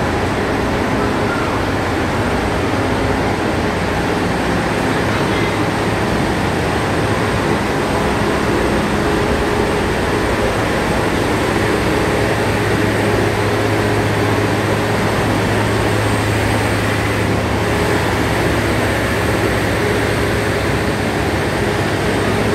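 A standing train running steadily: a low engine drone under an even hiss, with no change in level.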